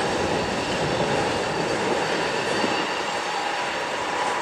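A train passing nearby: a steady rumble with faint, steady high squealing tones over it.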